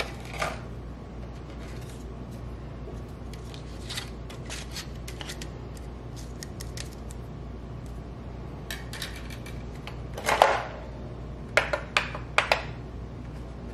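Hard plastic parts of a Roomba 614 robot vacuum being handled during disassembly: scattered small clicks and taps, a louder clatter about ten seconds in, then a few quick knocks.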